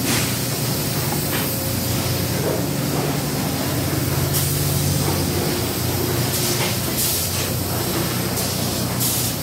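Steady din of plastic-jug factory machinery: a constant mechanical hum under a continuous hiss of air, with a few short, sharper hisses over the top.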